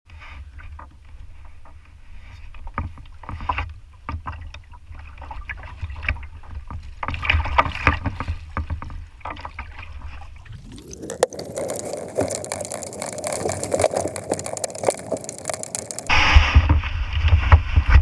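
Kayak paddle strokes splashing in lake water, with wind buffeting the action camera's microphone. The splashing gets much denser and louder about ten seconds in, and the wind rumble rises near the end.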